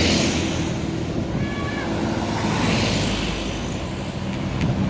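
Roadside traffic: a steady engine drone, with vehicles rushing past near the start and again about three seconds in.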